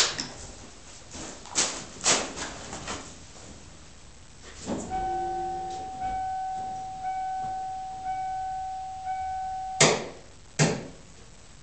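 Handling clicks and knocks inside a 1993 Ford F-150 Flareside's cab, then the truck's warning chime dinging about once a second for about five seconds, cut off by two sharp clicks.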